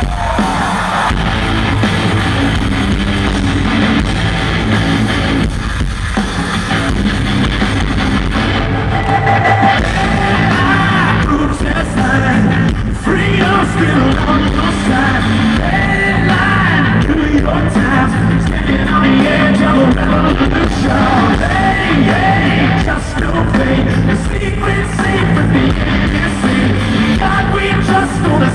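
Live rock band playing: electric guitar, bass and drums, with a male lead voice singing, heard from within the audience in a large hall.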